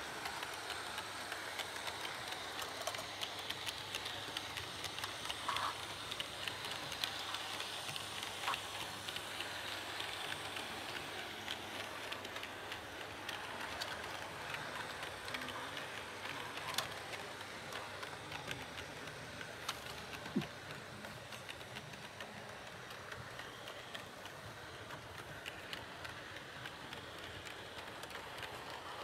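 Model train running on layout track: a steady running noise with fine, rapid clicking of the wheels on the rails and a few sharper clicks, slowly growing fainter near the end as the train moves away.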